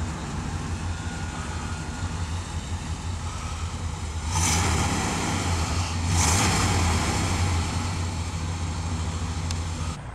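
1989 Chevrolet K1500's 350 cubic-inch V8 running at the exhaust with a steady low note, blipped twice about four and six seconds in.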